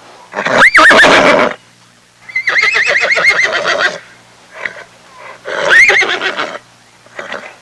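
Horse neighing: three loud whinnies, the middle one the longest with a rapidly quavering pitch, with a couple of short fainter sounds between them.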